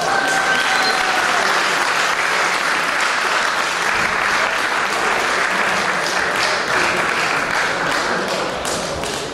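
Audience applauding, dying down slightly near the end.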